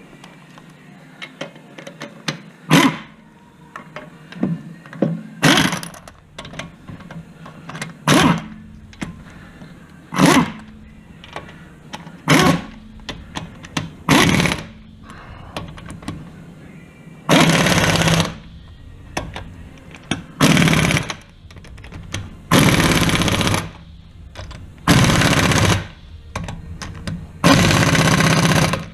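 Impact wrench running in short bursts as it spins lug nuts onto a car wheel, then hammering in five longer bursts of about a second each as it tightens them.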